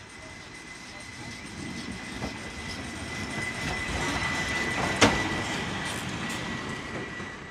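Steam tank locomotive Energie 507 passing close at low speed with its train, a rumble with clacking wheels that grows louder as it nears. A single sharp clack about five seconds in is the loudest moment, and the sound fades as it moves away.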